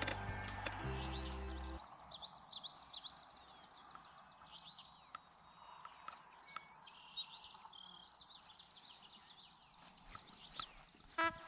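Several wild birds singing and calling in a marsh wetland: quick chirping phrases and, about halfway through, a rapid trill. Background music plays for the first two seconds and comes back just before the end.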